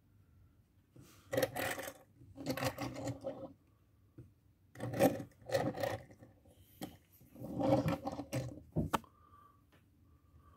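Two Mattel die-cast Lightning McQueen toy cars being pushed by hand along a wooden tabletop, their small plastic wheels rolling in four short bursts, with a sharp click near the end.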